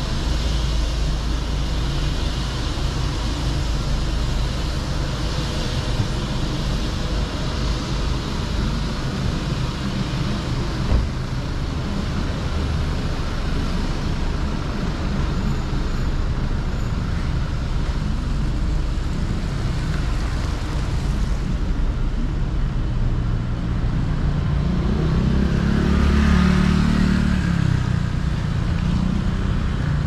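City street traffic noise on a slushy, snow-covered road. A vehicle passes close and loudest near the end.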